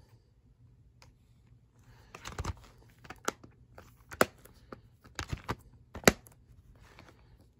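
Plastic Blu-ray case handled and clicked shut: a run of sharp plastic clicks and taps, the loudest near the end.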